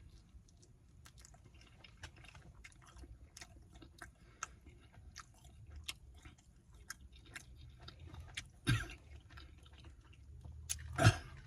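Close-up chewing and mouth sounds of a person eating garlic naan with butter chicken: many small wet clicks and smacks over a steady low hum, with two louder smacks in the last few seconds.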